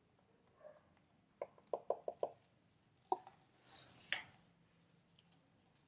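A wooden craft stick tapping and scraping against a small plastic paint cup to get the leftover paint out: a quick run of about six light taps, a single tap, then a short scrape.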